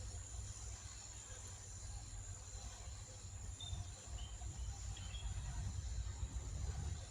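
Outdoor ambience beside a flooded river: a low, uneven rumble with a steady high-pitched insect-like trilling over it, and a few faint short chirps a few seconds in.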